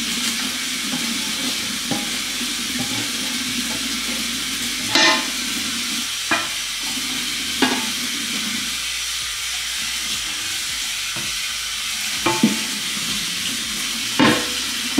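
Kitchen tap water running steadily into the sink while a pan is scrubbed with a dish brush, with a few short knocks of dishes against the sink.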